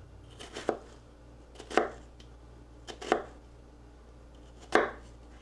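Chef's knife cutting down through a red onion half, the blade tapping the cutting board at the end of each stroke: several cuts, three of them louder, about a second and a half apart.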